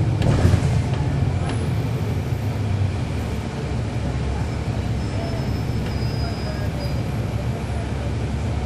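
Cabin noise aboard a NABI 416.15 transit bus with its Cummins ISL9 inline-six diesel running, a steady low rumble. A few short rattles or clicks come in the first second or so.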